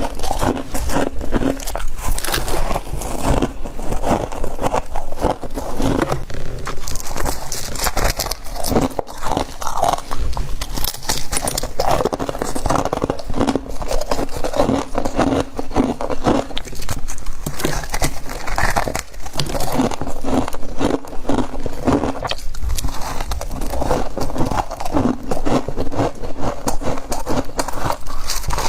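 A person crunching and chewing mouthfuls of humidifier frost: dense, continuous crackly bites with no pauses.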